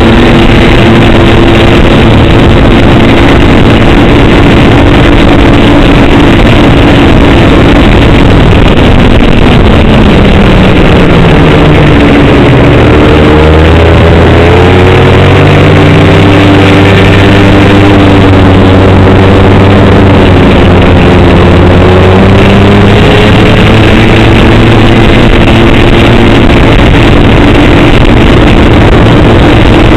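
Snowmobile engine running under way, loud on the microphone. Its note drops about a third of the way in, holds lower for several seconds, then climbs back up.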